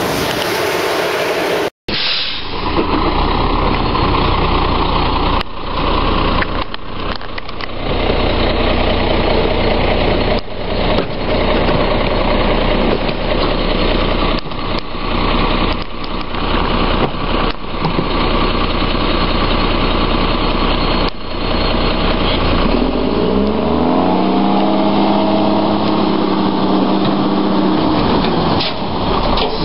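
Diesel engine of a front-end-loader garbage truck with an E-Z Pack body running steadily, with scattered clunks and knocks. Near the end the engine revs up in rising surges as the hydraulic arms lift a container over the cab.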